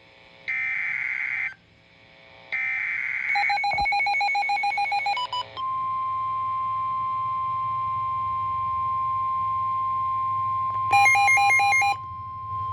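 Emergency Alert System activation on NOAA Weather Radio received by several weather radios. Two more one-second screeching bursts of the SAME digital header come first, then a radio's pulsing alert beeps, then the long steady Weather Radio warning alarm tone from about five seconds in. Another radio's pulsing beeps join briefly around eleven seconds in. The sequence signals a new severe thunderstorm warning.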